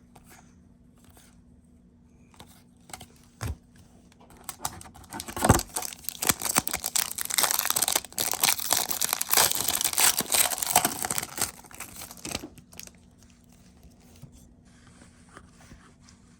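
Trading-card pack wrappers being torn open and crinkled: a few soft knocks, then about seven seconds of dense tearing and crackling starting about five seconds in, fading near the end.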